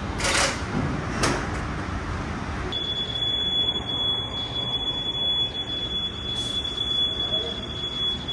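A steady high-pitched electronic tone, like an alarm or warning beep, comes on about three seconds in and holds without a break, over a steady low rumble, with a couple of short knocks near the start.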